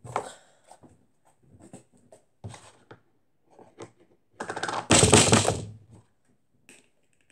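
Sticky homemade slime squelching and clicking as it is pressed into and worked out of a small plastic cup, in short separate bursts. About four and a half seconds in comes a much louder crackling, squelching noise lasting over a second.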